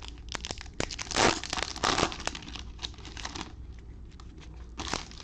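Foil trading-card pack wrapper crinkling and being torn open, with cards clicking and sliding against each other; two louder rips come about one and two seconds in.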